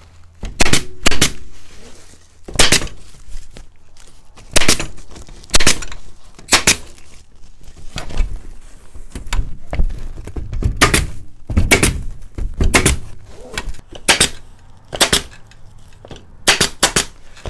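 BEA pneumatic upholstery stapler firing 3/8-inch staples through burlap into a seat frame: a sharp crack with each shot, more than a dozen at irregular intervals, some in quick pairs and a quick run of three near the end.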